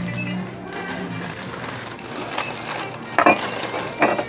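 Shop checkout sounds: a low steady hum, then a few sharp knocks and clatters of items being handled on the counter, the loudest two near the end.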